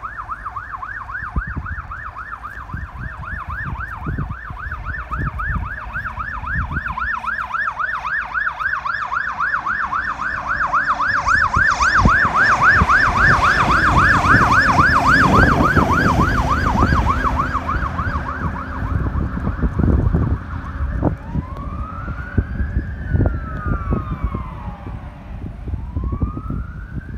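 Fire tanker truck's electronic siren on a fast yelp, growing louder as the truck comes up and passes with a low diesel rumble. It then switches to a slow rising-and-falling wail as the truck moves away.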